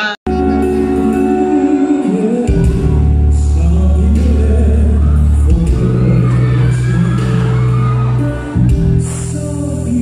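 A male singer singing into a microphone over amplified backing music. The sound cuts out for a moment at the very start, and a strong bass comes in about two and a half seconds in.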